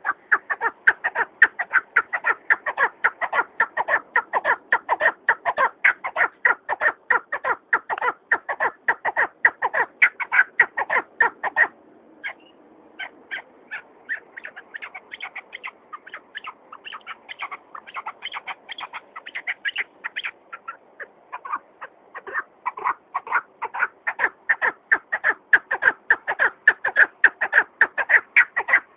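Chukar partridge giving its rapid, repeated chuck call, about three notes a second. The calls turn softer and sparser about twelve seconds in, then build back up to full strength.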